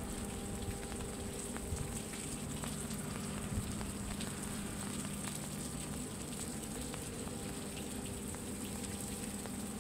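Light rain pattering steadily in fine crackles, with a steady low hum underneath.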